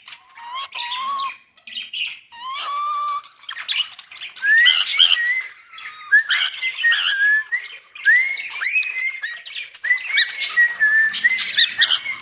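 Cockatiel chattering: a few short squawks at first, then a busy run of quick whistled chirps and rising glides.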